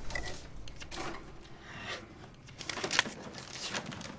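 Small handling sounds: light rustling and clicks as objects and paper are moved, with one sharper click about three seconds in.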